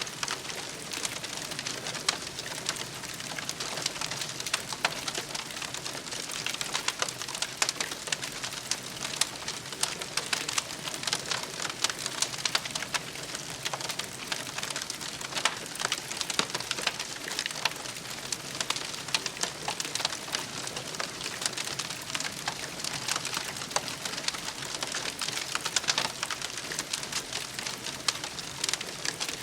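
Campfire crackling: a continuous stream of small pops and snaps over a soft steady hiss.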